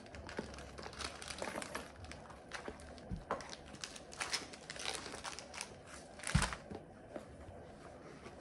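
Small items and packets being moved around inside a handbag: rustling and light clicks, with one heavier thump about six seconds in.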